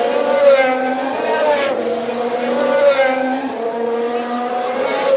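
Formula One cars' 1.6-litre V6 turbo-hybrid engines running at high revs, the pitch wavering up and down as they accelerate and lift, with more than one car heard at once.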